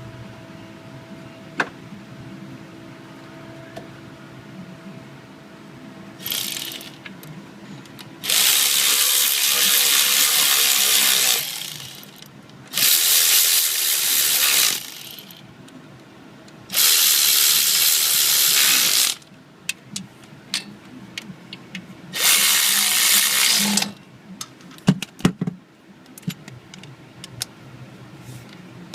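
A power tool running bolts in, in bursts: one short burst, then four runs of about two to three seconds each. Scattered sharp clicks from hand tools follow near the end.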